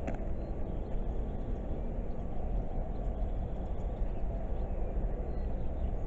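Steady low rumble of outdoor background noise with no distinct events, and a faint click at the very start.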